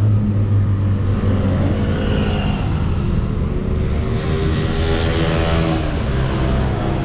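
Road traffic on a wide city avenue: a steady low engine rumble, with a motorbike engine rising in pitch as it accelerates past in the second half.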